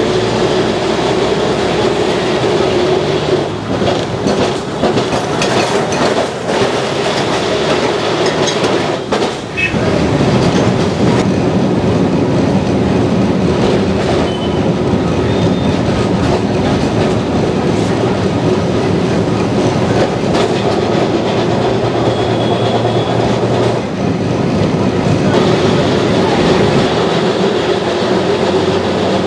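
Kolkata tram running along street track, heard from inside the car: a steady rumble and rattle of the car body, with knocks and clacks from the wheels on the rails.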